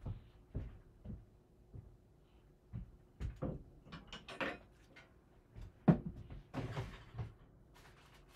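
Scattered knocks, clicks and clatter of objects being handled and set down, with one sharper, louder knock about six seconds in, over a faint steady hum.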